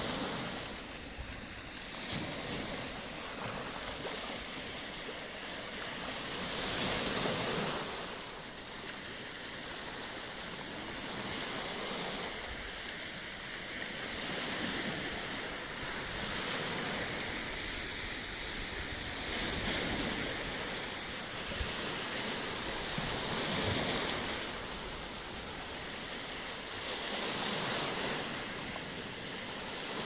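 Black Sea waves breaking and washing over a pebble and stone shore. Each swell rises and falls back about every four seconds.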